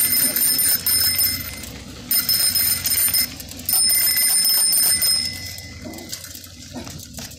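Bicycle bell rung in three long trills of about a second each, close together, over the low rumble of tyres on a dirt yard.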